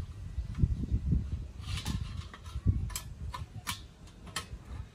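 Metal kettle grill parts being handled and fitted together: a few sharp metallic clicks and taps over dull handling bumps, as a part's snaps are lined up with the holes in the steel bowl.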